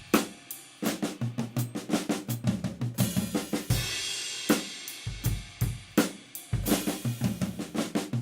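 Drum kit played in quick runs of strokes moving around the drums, the Swiss Army Triplet flam rudiment orchestrated across the kit, with bass drum kicks under it. A cymbal crash about three seconds in and another a few seconds later.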